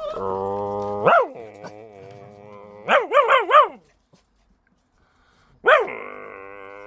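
A person imitating a dog: a held whine, a yelp, a quick run of four yips, then another yelp drawn out into a long howl.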